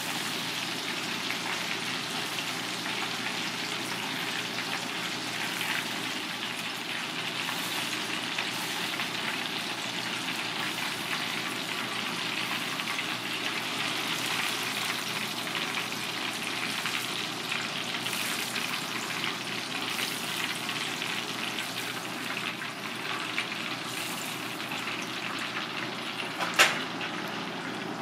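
Hot oil sizzling steadily as battered fish pieces deep-fry in a pot. A single sharp knock near the end.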